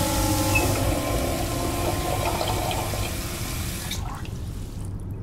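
Water gushing hard from a bathroom sink tap, a loud steady rush that cuts off about four seconds in, leaving a low rumble.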